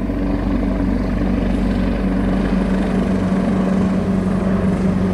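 Helicopter flying low overhead, its rotor and engine giving a loud, steady drone with a low hum.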